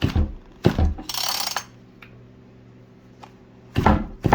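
Recoil starter on a Husqvarna 55 two-stroke chainsaw being pulled with the stop switch off: a short whirr of the rope running out as the engine turns over without firing, with ratcheting clicks from the starter. A second pull begins near the end. The starter is being checked after reassembly, and it works properly.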